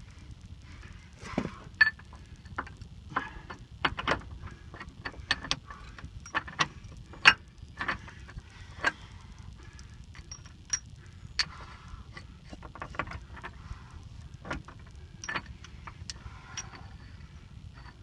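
Irregular sharp metallic clinks and taps of bolts, nuts and washers being handled and threaded while a backhoe's axle housing is bolted up to the frame, over a steady low rumble.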